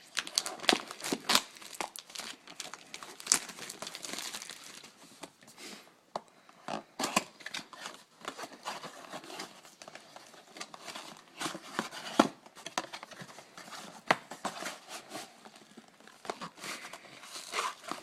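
Plastic wrapping crinkling and tearing as a 2010 Topps Chrome blaster box of trading cards is unwrapped and opened, with irregular crackles and sharp snaps.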